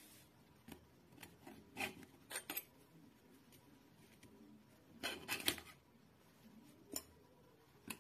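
Metal spoon scraping and tapping against a mini idli pan as cooked chitoi pitha cakes are pried out of its cups: a few short scrapes and taps, loudest about two seconds in and again around five and a half seconds, with a single click near the end.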